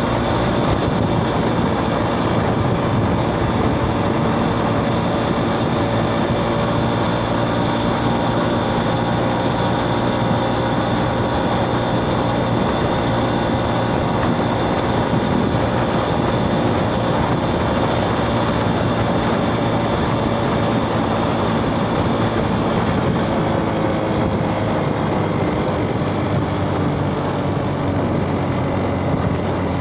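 2006 Suzuki Smash motorcycle's single-cylinder four-stroke engine running at a steady cruise while riding, its hum drifting slightly in pitch, over road and wind noise.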